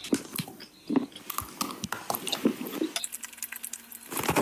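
A person biting and chewing food, with many irregular crisp clicks and crunches.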